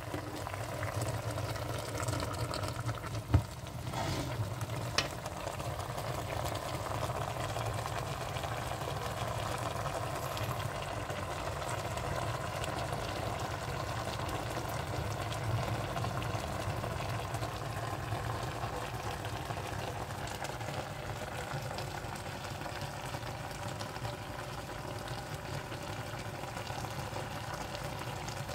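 Chicken pieces and vegetables cooking in a steel pot on a hot hob: a steady sizzle, with a few sharp knocks in the first five seconds.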